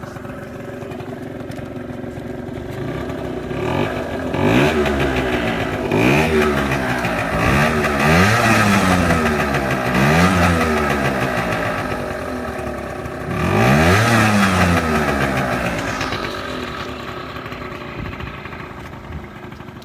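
50cc two-stroke scooter engine, running on a freshly fitted CDI ignition, idling and then revved up and back down repeatedly with the throttle from about four seconds in, with one more rev a few seconds later before it settles back toward idle near the end.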